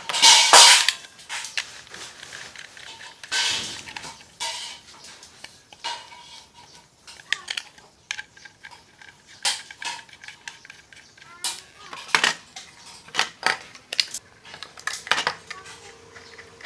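Small metal electrical fittings, flexible conduit connectors and junction boxes, clinking and knocking as they are handled and threaded into place. Irregular sharp clicks, with the loudest clatter about half a second in.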